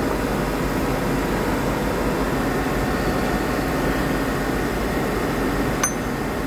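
CNC lathe running steadily: an even mechanical noise with a faint low hum, and one short click near the end.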